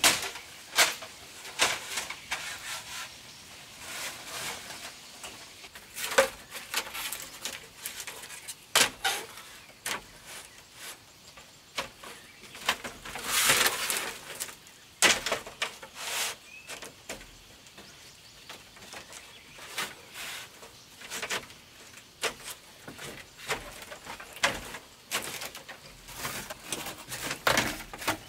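Split bamboo slats clattering and knocking against a bamboo floor as they are laid and shifted by hand: irregular sharp clicks and knocks, with a longer scraping rustle about halfway through.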